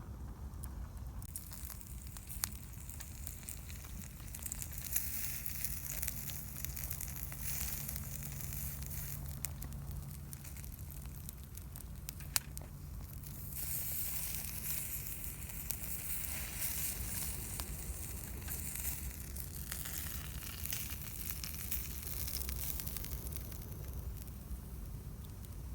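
Small campfire burning: a crackling hiss that starts about a second and a half in, with a few sharp pops.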